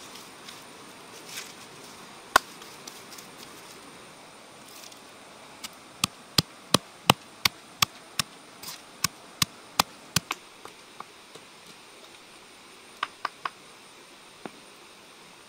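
Wooden pestle pounding red chilies in a stone mortar: a run of sharp knocks about three a second from around six to ten seconds in, trailing off, with a few more strikes near the end.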